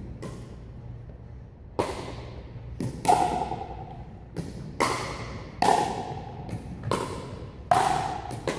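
Pickleball rally: paddles striking the plastic ball, about ten sharp pocks, one every half second to a second, each ringing on in a big gym hall.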